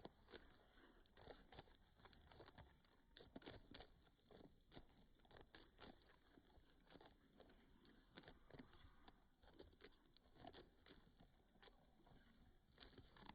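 Chickens pecking: faint, irregular taps and clicks, several a second.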